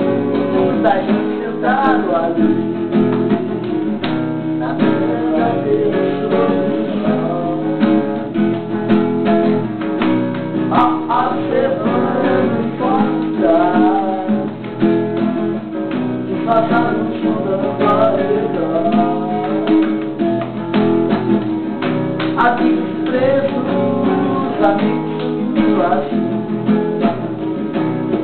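Acoustic guitar strummed with voices singing along, played live.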